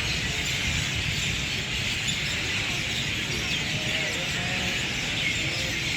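A large flock of birds chirping all at once, a dense, steady wash of many overlapping chirps, with a low rumble underneath.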